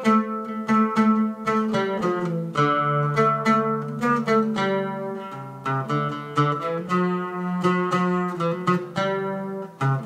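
Oud played solo: a melody of plucked notes in quick succession, over lower notes that ring on.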